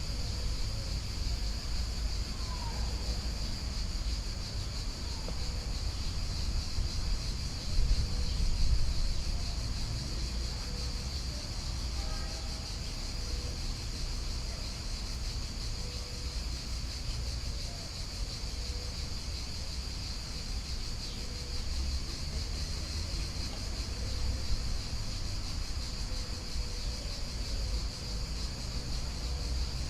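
Insects, crickets or cicadas, trilling in one steady high-pitched drone over a constant low rumble, with a few faint chirps scattered through.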